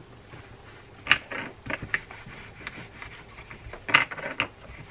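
Cloth rubbing and scrubbing the spinning reel's side case as it is cleaned, in short irregular scratchy strokes with a louder burst of wiping near the end.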